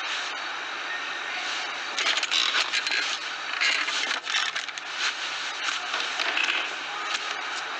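Film sound effects: a steady hiss, then from about two seconds in a busy run of small clicks, clatters and scrapes, like objects being handled and knocked about.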